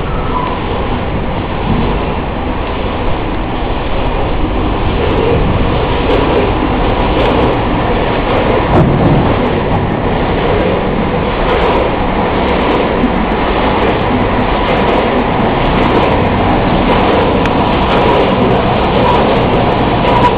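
Twin-screw extruder snack production line running: a steady, loud mechanical din of the machinery and conveyors, with a faint steady whine.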